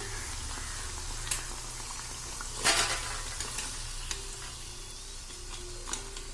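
Batter-coated jackfruit fritters sizzling steadily in hot oil, with a few light clicks of a utensil against the pan and a brief louder hiss about two and a half seconds in as the oil is stirred.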